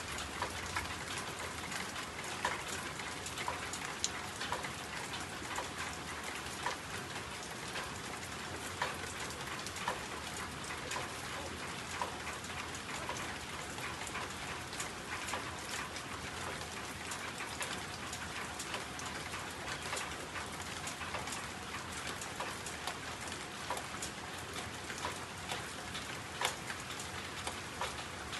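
Steady rain, an even hiss with many irregular drip ticks.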